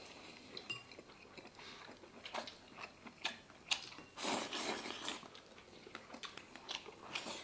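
People chewing and eating, with scattered small clicks of chopsticks and bowls and a louder burst of eating noise about four seconds in.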